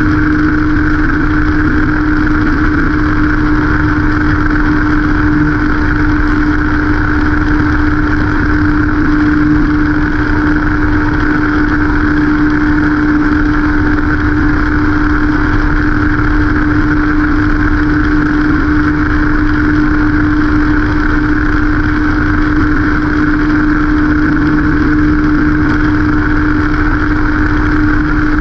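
Motorcycle engine running at a steady, unchanging pitch while cruising, with wind and road noise on the microphone.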